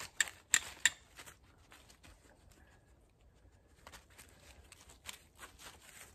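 Steel striker struck against flint three times in quick succession, sharp ringing metallic clinks about a third of a second apart. These are followed by soft handling sounds and scattered small clicks.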